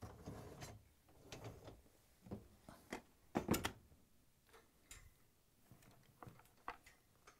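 Faint scattered clicks and light rattles from a wire dishwasher rack being handled, with a dishwasher door pushed shut, the loudest couple of knocks about three and a half seconds in.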